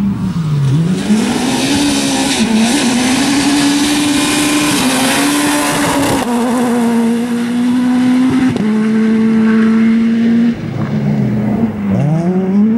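Rally car engine driven hard: the revs dip and climb, then hold high with short steps in pitch at the gear changes. The engine note drops sharply about ten seconds in as the driver lifts off, then revs climb hard again near the end.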